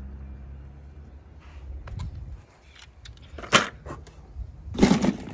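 Scattered clicks and clinks of die-cast toy cars being handled, with a sharper clatter about three and a half seconds in and a burst of clatter near the end.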